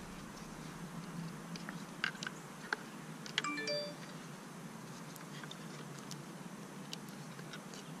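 Faint small clicks and taps of plastic tweezers and connectors working inside a plastic router enclosure, with a brief ringing ping about halfway through, over a steady low hiss.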